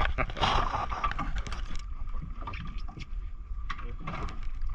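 Low rumble of a small fishing boat at sea, with wind on the microphone and a thin steady whine, and a burst of hiss about half a second in.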